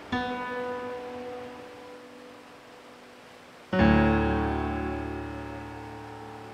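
Background music: slow piano chords, each struck and left to ring and fade. A softer chord sounds at the start, and a louder, fuller one with a deep bass note comes in just before the four-second mark.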